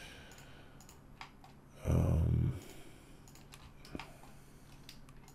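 Sparse clicks of a computer mouse and keyboard, with a sharper single click about four seconds in. About two seconds in, a short low vocal sound, louder than the clicks.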